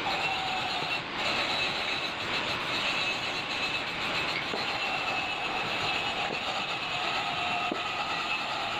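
Steady mechanical running noise with a few faint, steady whining tones and no breaks.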